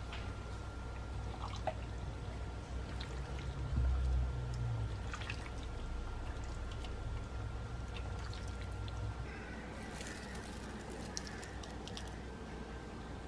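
A ladle scooping and pouring hot soup broth into a bowl, with liquid splashing and small clinks of the ladle, over a low steady hum.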